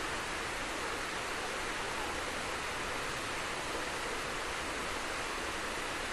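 Waterfall: the steady, even rush of falling water, unbroken and without change.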